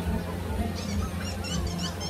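Music with a steady low bass, and a quick run of high chirping sounds starting a little under a second in.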